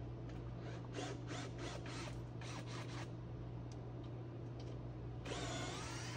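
Bolts being taken out of a sawmill's shipping crate: a run of short rasping ratchet strokes, then about a second before the end a cordless power driver spins up, its motor pitch rising and falling.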